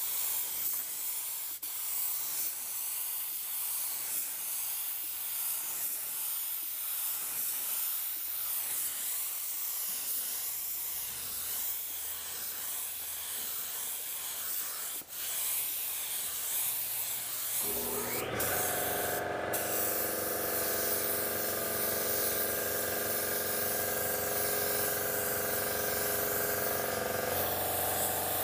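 Gravity-feed paint spray gun spraying basecoat: a steady hiss of atomising air, broken once by a short pause in the trigger. About two-thirds of the way through, a motor spins up and runs on with a steady hum under the hiss.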